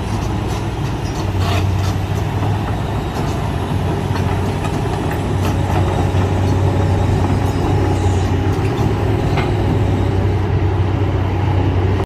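Kobelco SK200 hydraulic excavator's diesel engine running steadily under load as it digs and lifts dirt, a continuous low drone. A few short knocks sound now and then.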